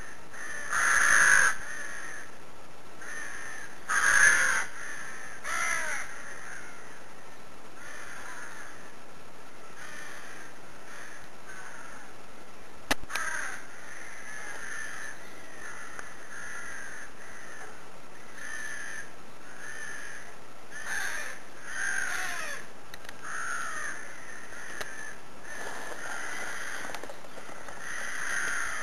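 Crows cawing over and over, a call every second or two, the two loudest caws near the start. A single sharp click comes about halfway through.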